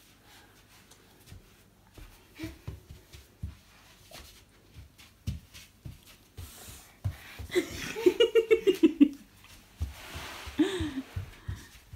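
A toddler's light footsteps thumping on a wooden floor. About eight seconds in comes a run of short, high laughing sounds from a young child's voice, and near the end a brief rising-and-falling vocal sound.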